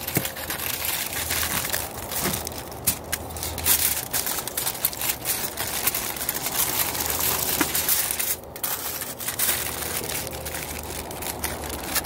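Aluminium foil crinkling and crackling in many small sharp crackles as hands fold and press it down, double-wrapping a fish packet so it won't burst.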